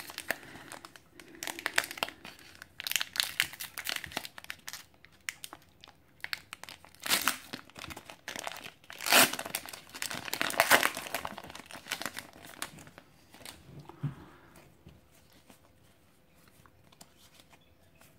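Foil wrapper of a Pokémon trading card booster pack being torn open by hand, crinkling and crackling in irregular bursts, loudest about nine to eleven seconds in. It dies down to faint rustling over the last few seconds.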